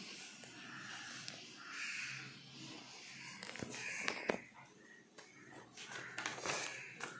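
Paper rustling and sharp clicks from an open textbook being handled and its pages shifted, the loudest clicks about four seconds in. Short irregular calls or voices sound faintly in the background throughout.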